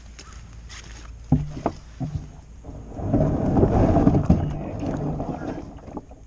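Kayak handling: a few sharp knocks on the boat, then a louder rush of water or scraping lasting a couple of seconds.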